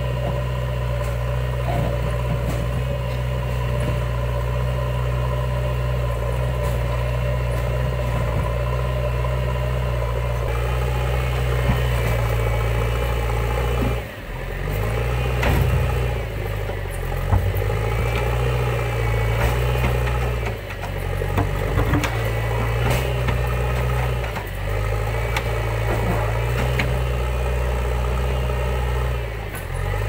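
JCB 3DX backhoe loader's diesel engine running steadily, then rising and falling in pitch again and again from about halfway, as the machine moves and works its front loader bucket. A few sharp knocks sound among the engine noise.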